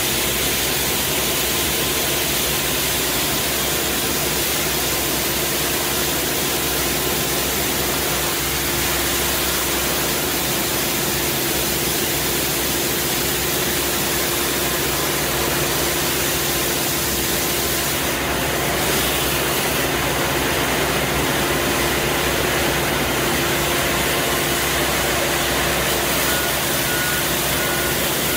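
Compact street sweeper running steadily while its rotating side brush scrubs brick paving along a kerb: a constant engine hum under an even hiss.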